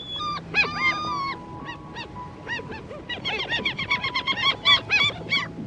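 Seagulls calling: a string of short calls that rise and fall in pitch, a few drawn out in the first second and a half, crowding into a rapid overlapping flurry from about three seconds in.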